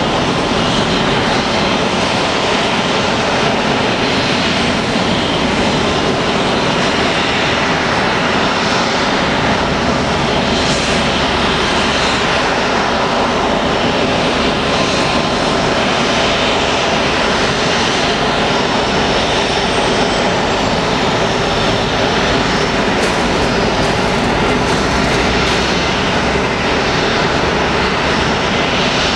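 Boeing 737-500's CFM56 turbofan engines idling on the apron after pushback, a steady, dense roar with no change in level.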